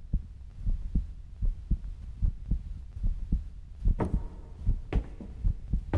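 Heartbeat sound effect: a steady run of low, muffled thumps, about three to four a second, over a low hum.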